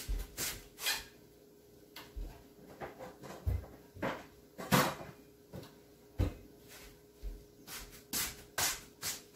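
Kitchen clatter: about a dozen irregular knocks and thumps, cupboard doors and things being handled and set down, with the loudest knock about halfway through.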